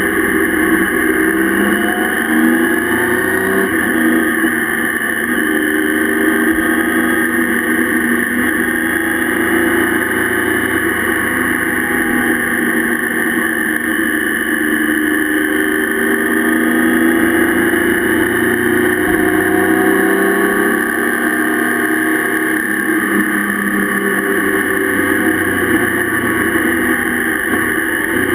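Motorcycle engine running under way, its pitch rising and falling over and over as it accelerates and changes gear, over a steady rush of wind and tyre noise on a wet road.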